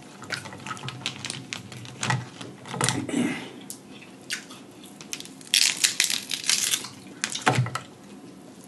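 Boiled crab legs being cracked and broken apart by hand, with sharp cracks of shell, crackling, and wet sucking and chewing as the meat is pulled out, busiest a little past the middle.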